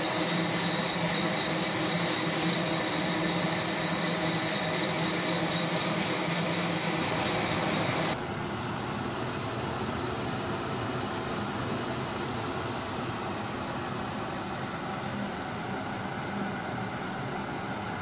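Fracino Roastilino hot-air coffee roaster running, its blower forcing air up through the beans in a steady, loud whirring hiss. About eight seconds in it drops suddenly to a quieter, duller steady blowing.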